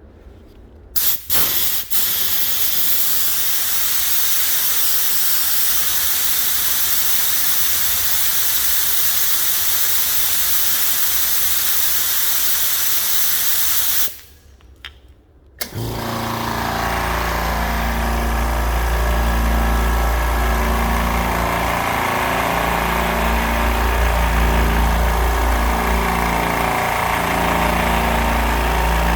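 Compressed air hissing out steadily for about thirteen seconds, then stopping. After a short pause, the low-noise oilless air compressor starts up and runs steadily with a low motor hum.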